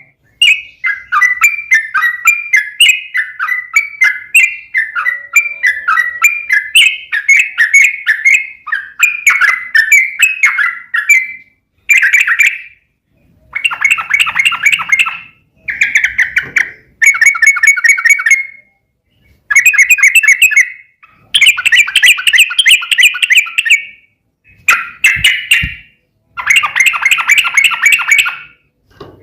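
Yellow-vented bulbul (trucukan) singing a loud, bubbly chattering song. It runs on unbroken for about the first eleven seconds, then comes in bursts of rapid trilled notes a second or two long, separated by short pauses.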